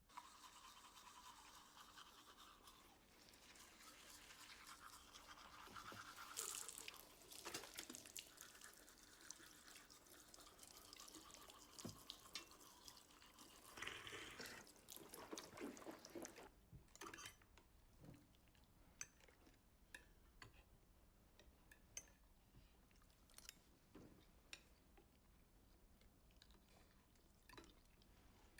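Faint scrubbing of a toothbrush on teeth, with many quick strokes, for about the first half. After that it stops, leaving only sparse small clicks and taps.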